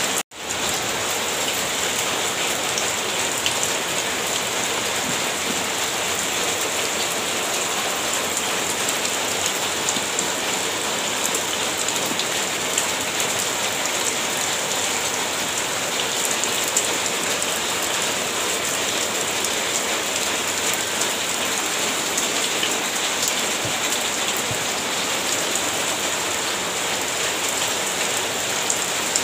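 Steady hiss of rain falling, cut off for a split second just after the start.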